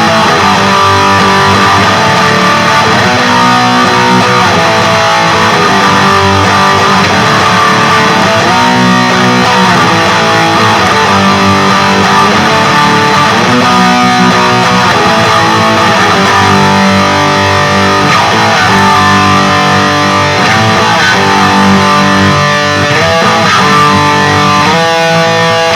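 Electric guitar with active pickups played through a Peavey Vypyr 15 modelling amplifier on its Peavey XXX high-gain amp model: loud riffs with chord changes every second or two.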